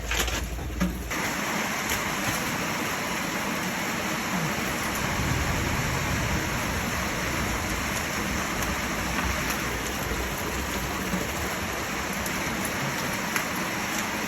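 Rain falling steadily, an even hiss. A few sharp knocks in the first second.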